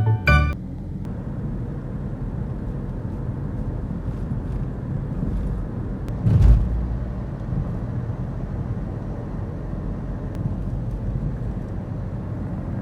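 Steady low rumble of a car driving, with one louder bump about six and a half seconds in.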